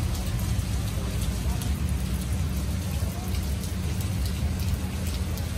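Steady rain falling, with scattered drops ticking on surfaces close by over an even hiss and a steady low rumble underneath.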